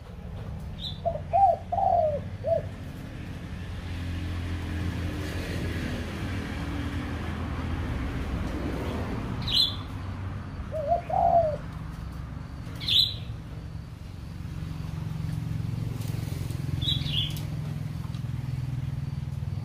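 Caged birds calling: a short run of low warbling notes about a second in and again around eleven seconds, with a few sharp high chirps scattered through, over a steady low hum.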